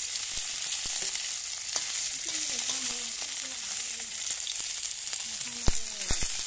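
Food frying in hot oil in a pan on a gas stove: a steady sizzle with scattered pops and clicks, and a sharper click near the end.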